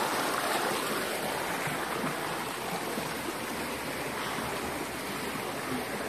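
Clear stream water rushing over rocks and small cascades into shallow pools: a steady, even rush of running water.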